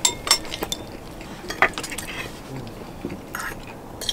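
Knife and fork clinking and scraping on a hammered metal plate while cutting a hamburg steak. There are a few sharp clicks in the first second and a louder one about a second and a half in.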